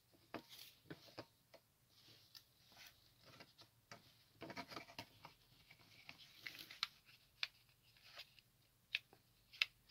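Faint, scattered clicks, taps and rubbing of plastic model-kit fuselage halves being handled and pressed together in a test fit, with a few sharper ticks in the second half.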